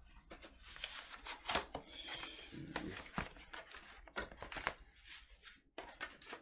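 Cardboard record mailer being opened by hand: flaps and a paper insert rustling and scraping, with many short sharp crackles.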